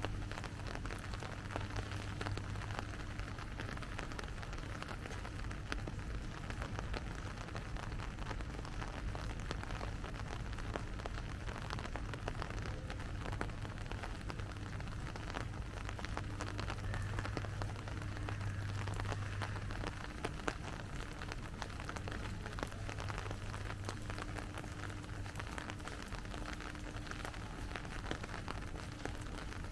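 Steady rain falling, with many small drops pattering, over a low steady hum.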